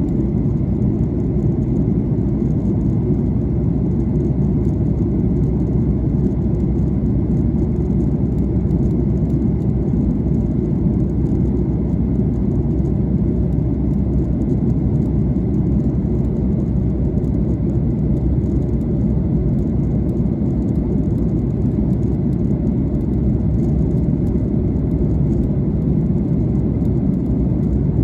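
Airliner cabin noise during descent: a steady, low rush of engines and airflow over the fuselage, with a faint thin high tone held throughout.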